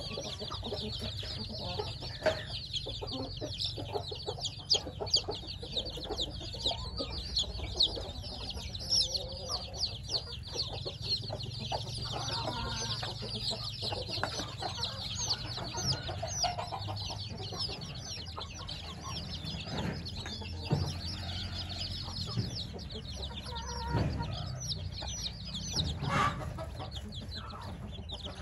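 A brood of one-week-old chicks peeping constantly, many quick high-pitched peeps a second overlapping into a chorus. A few lower calls stand out now and then, over a steady low hum.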